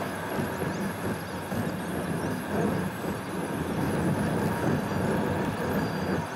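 Car driving along a road, heard from inside the cabin: a steady mix of engine and tyre noise that swells and eases slightly.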